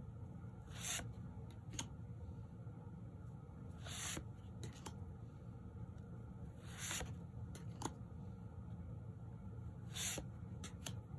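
Tarot cards slid one at a time off the top of a deck held in the hand. There is a short papery swish of card against card about every three seconds, four in all, with a light tick or tap after each.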